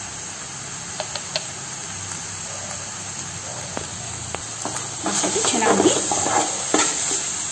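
Minced chicken frying in a steel kadai with a steady sizzle and a few light spatula taps. About five seconds in, a steel spatula starts stirring and scraping the mince against the pan, louder.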